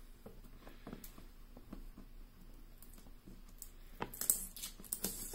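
Fingernails picking at and peeling the small round tape seals off a cardboard box: faint scratches and ticks, then a burst of scratchy rustling about four seconds in.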